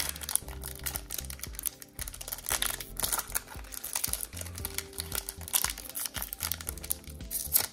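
Foil wrapper of a Pokémon trading-card booster pack crinkling and crackling in the fingers as they work at its sealed top edge to tear it open, over quiet background music.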